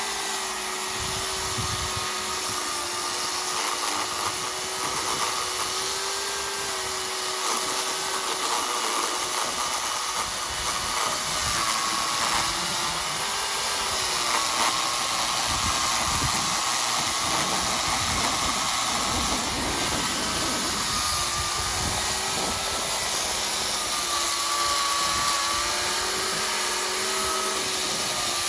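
Makita electric chainsaw running and cutting firewood: a steady motor whine that dips in pitch and recovers several times as the chain bites into the wood.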